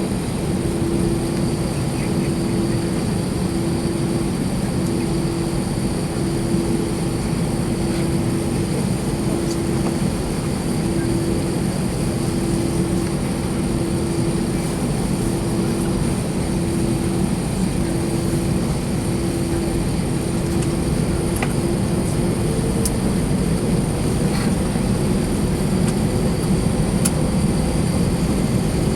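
Cabin noise inside an Airbus A321-231 with its IAE V2500 engines running before takeoff: a steady hum with a mid-pitched tone pulsing on and off about every second and a half. About three-quarters of the way in, a slightly higher tone joins and the noise grows a little louder.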